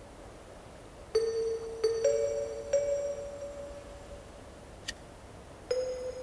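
Slow chime-like music: five soft struck tones on two alternating notes, each ringing out, the first about a second in and the last near the end.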